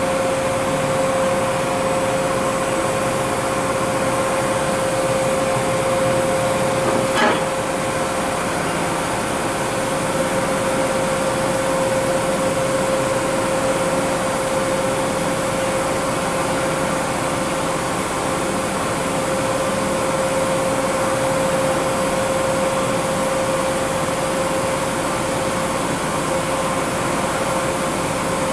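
Makino a51nx horizontal machining center running: a steady mechanical hum with a constant whine, and a single sharp click about seven seconds in.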